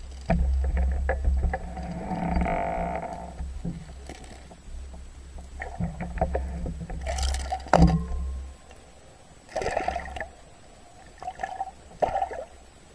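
Water heard through a submerged camera: a low rumble of moving water with scattered knocks and clicks for about the first eight seconds, then short bursts of sloshing and bubbling as the surface above breaks into splashes near the end.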